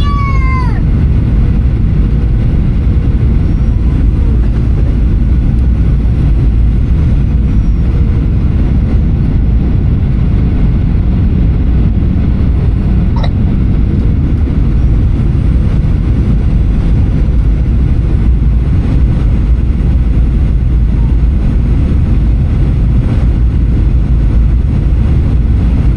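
Steady, loud cabin rumble of a Boeing 737-800 from a seat near the front: its CFM56-7B engines and the airflow past the fuselage. A short falling tone sounds right at the start, and a single click comes about halfway through.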